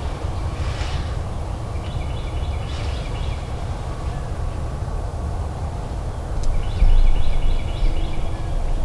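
Steady low outdoor rumble with a bird calling in two spells of short repeated notes, about two seconds in and again near the end, and a brief louder gust of rumble about seven seconds in.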